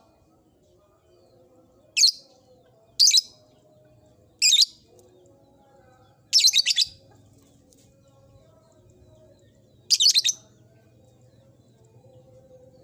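Lovebird giving five short, shrill chirping calls, spaced one to four seconds apart, the fourth a little longer than the others.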